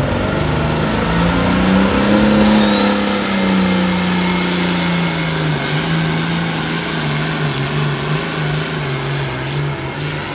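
Pulling tractor's diesel engine at full throttle, dragging a weight-transfer sled down the track. The engine note climbs over the first two seconds, then slowly sags and wavers as the sled's load builds and the engine lugs down.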